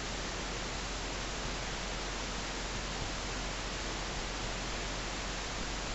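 Steady, even hiss of recording noise and room tone, with no distinct taps or other events.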